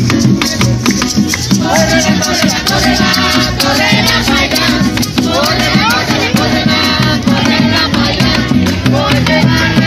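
Live Venezuelan parranda music: a small four-string cuatro strummed, a barrel hand drum struck with a stick and the palm in a steady rhythm, and maracas shaking. Voices come in singing about two seconds in.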